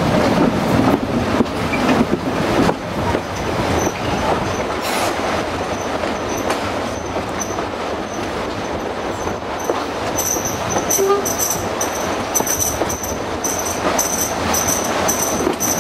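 Passenger train running, heard from an open carriage window: a steady rumble of the carriages on the track with scattered rail clicks. From about ten seconds in, the wheels squeal on the curve in a high, rapidly pulsing whine.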